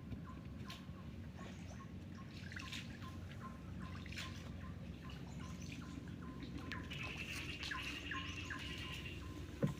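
Wild birds chirping and calling in short, repeated notes, with a sustained buzzing trill for about two seconds near the end. A low, steady rumble runs underneath.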